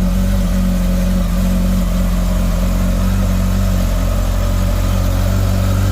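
Motorcycle engine idling loudly and steadily with a deep, even beat.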